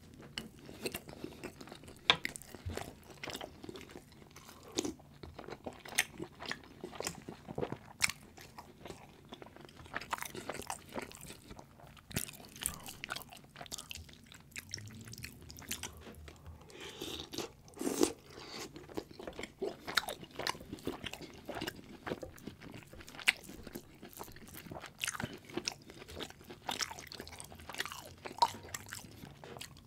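Close-miked mouth sounds of eating sauce-covered Korean street food: chewing and crunching, with many sharp crunches at irregular intervals.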